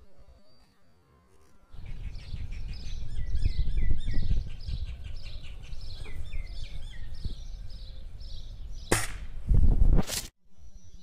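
Small birds chirping in a quick repeated series over wind rumble on the microphone. Near the end come two sharp loud cracks about a second apart, the second heavier, from a break-barrel air rifle being fired.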